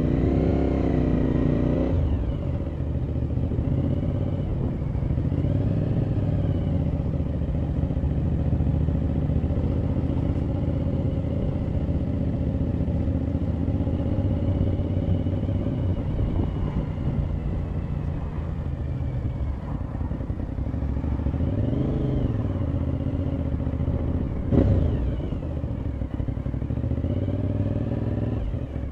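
Motorcycle engine running while riding, with steady wind rush; the engine pitch rises and falls several times as the bike speeds up and slows. One sharp knock sounds near the end.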